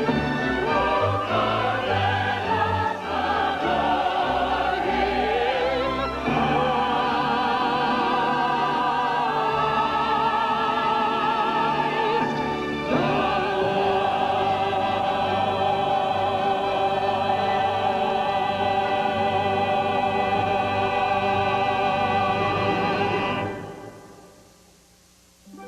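Operatic singing with orchestral accompaniment, the voice holding long notes with a wide vibrato. The music fades away about two seconds before the end.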